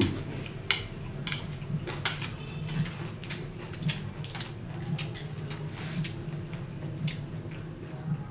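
Chopsticks and a spoon clicking and scraping on a metal tray of salad as food is picked up, a series of sharp clicks about one or two a second, with chewing underneath.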